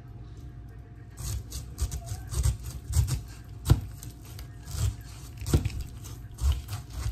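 Knife cutting up a pineapple on a cutting board: irregular cutting strokes and thumps, about one every half second to second, starting about a second in.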